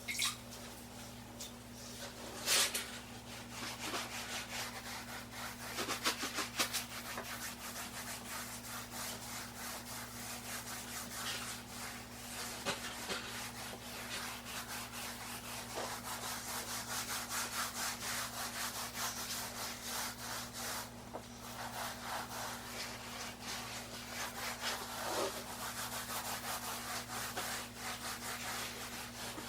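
A damp sponge is rubbed over partly set mortar in a shower pan, making a continuous scratchy rubbing of many quick strokes. It is smoothing the surface before the mortar dries off.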